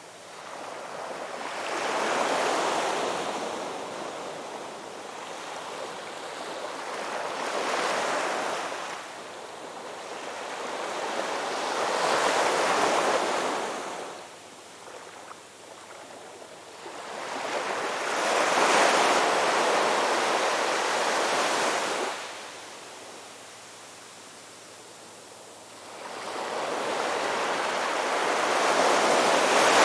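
Ocean waves breaking and washing in, in about five surges a few seconds apart, each swelling and then falling away into a quieter lull.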